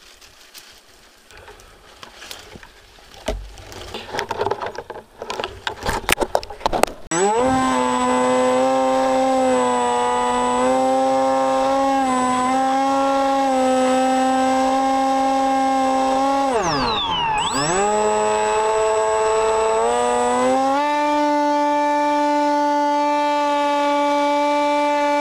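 Twigs and branches crackling and rustling as an RC plane is handled in a tree. About seven seconds in, the plane's motor and propeller spin up quickly and run at a steady high pitch, heard from the onboard camera. Around seventeen seconds the pitch drops sharply and climbs back as the throttle is eased and reopened, then holds a little higher.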